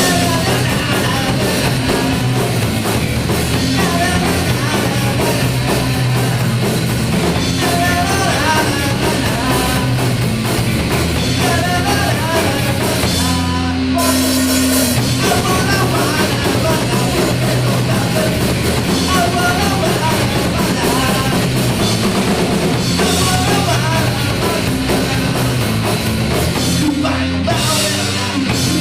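Rock band playing loudly on drum kit, distorted guitar and bass, with a short stop about halfway through before the band comes back in.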